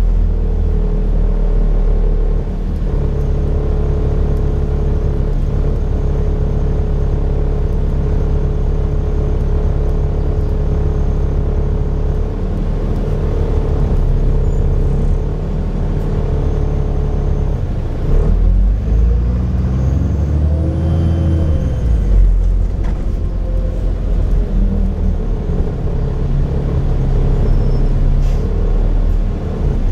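Cummins Euro 4 diesel engine of a Dennis Trident Enviro 400 double-decker bus running under way, a steady drone with a held whine and turbo whistle. About 18 seconds in the engine note rises and falls, with a faint high whistle arching up and back down.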